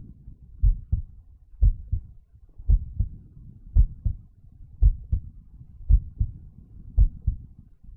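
Recorded heart sounds demonstrating a loud first heart sound (S1). The beat is regular at about one a second, and each beat is a strong first sound followed closely by a softer second sound.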